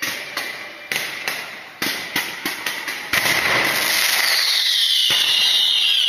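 Aerial fireworks launching in quick succession: a string of sharp bangs over the first three seconds, then a dense hiss of many rising tails at once. Near the end a whistle slides down in pitch.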